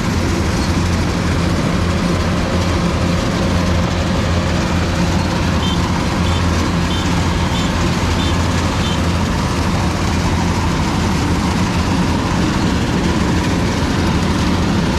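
An engine running steadily at an unchanging speed, with a constant low hum under an even mechanical noise.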